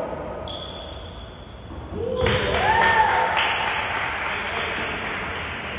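Basketball crowd cheering and clapping, with a shout, swelling suddenly about two seconds in and slowly dying away.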